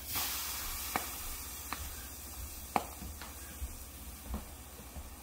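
Steam iron pressed onto a water-soaked towel, steam hissing and sizzling as the hot soleplate boils off the water; the hiss starts suddenly and slowly dies down, with a few small pops and ticks through it.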